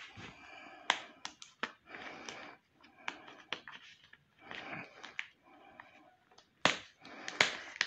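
Fingers picking and pulling at the tape seal of a cardboard power-supply box: irregular sharp clicks and short scratchy rustles of cardboard and tape, the loudest couple of clicks near the end.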